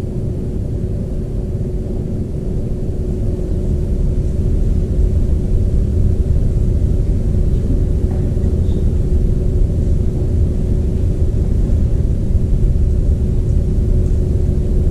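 Steady low rumble with a constant hum, growing slightly louder over the first few seconds.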